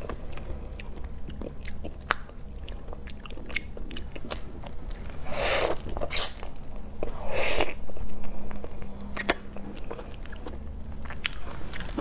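Close-up biting and chewing of whole raw marinated shrimp, with many small crunching clicks of shell. There are two louder, longer wet bursts a little past halfway.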